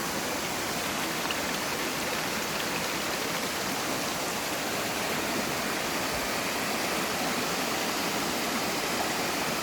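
Mountain valley stream running full after rain: a steady, even rush of flowing water.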